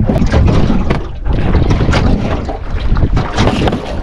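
Strong wind buffeting the microphone out on open water, a loud rushing with gusty flutters, easing briefly about a second in.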